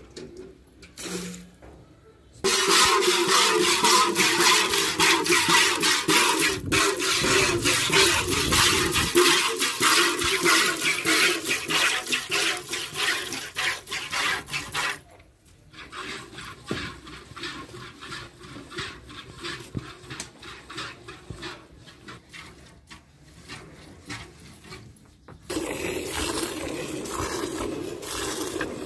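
Hand-milking a water buffalo: jets of milk squirt in quick succession into a stainless steel bucket of frothy milk, making a hissing patter. It starts about two seconds in, softens about halfway through, and grows louder again near the end.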